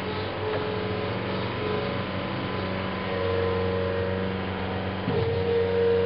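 Cat 226B3 skid steer loader's diesel engine running steadily under load, with a hydraulic whine that grows stronger about three seconds in as the loader arms and bucket are worked. There is a single clunk about five seconds in, after which the whine is at its strongest.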